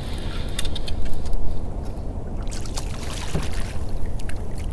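Water lapping and splashing against the hull of a small open boat, over a low steady rumble, with scattered light clicks and knocks.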